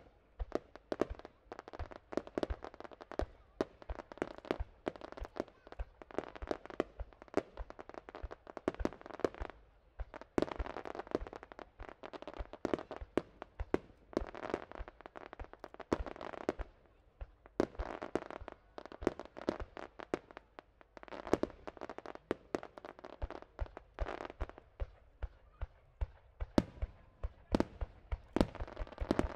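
Aerial fireworks bursting in rapid succession: a dense, continuous run of sharp bangs over steady crackling, with several reports a second throughout.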